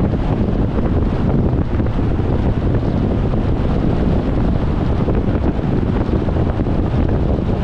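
Steady rumble of wind and road noise from a car being driven, with no engine note or other event standing out.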